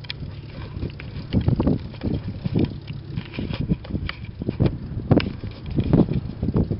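Wind buffeting the microphone in irregular gusts, over the faint steady running of an Aeronca Chief light aircraft's engine as it taxis.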